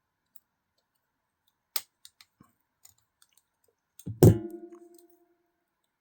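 Small metal clicks and ticks of knife parts being handled during disassembly. About four seconds in, a small metal part is knocked or set down on a hard surface and rings briefly with a clear metallic tone.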